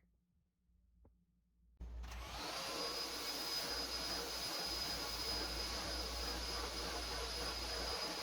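Philips SpeedPro cordless stick vacuum cleaner switching on abruptly about two seconds in, then running steadily with a high-pitched motor whine over a rush of air.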